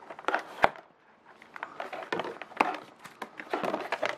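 Handling noise from unpacking a Sennheiser GSP 305 headset: the headset and its black moulded box tray are lifted and shifted, giving irregular clicks and knocks with rustling between them. The sharpest knock comes about two-thirds of a second in.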